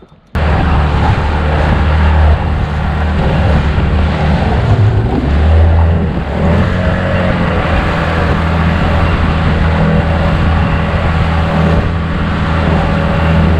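Outboard motor running steadily as an inflatable boat travels, a loud low drone with wind and water rush over it. The engine note wavers about five to seven seconds in.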